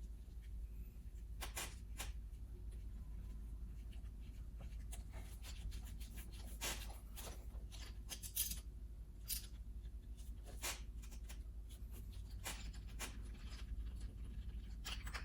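Scattered light clicks and rustles of hands handling small tools and parts during a spark plug inspection, over a low steady hum.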